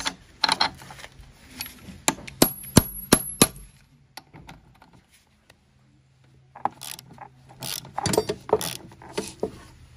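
Metal hand tools working on a car's front shock-absorber strut: a handful of sharp metallic clicks, one with a brief high ping. After a short lull comes a run of irregular clicking and scraping of metal on metal.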